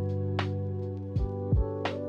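Background music: held chords over a soft beat, with kick drum thumps twice near the end and light percussion hits.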